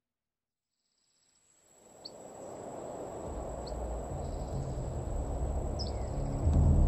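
Silence, then an outdoor evening ambience fading in: a steady high-pitched insect sound and three short bird chirps. A low drone swells in under it near the end.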